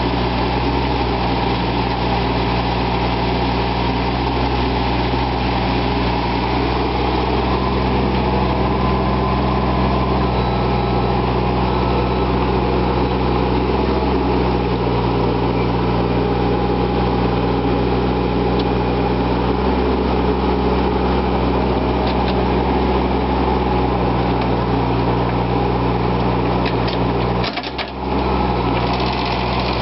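Cat mini excavator's diesel engine running steadily while the boom and bucket dig. The sound dips briefly near the end.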